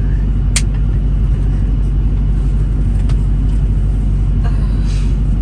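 Truck engine idling, a steady low rumble heard from inside the cab, with one sharp click about half a second in.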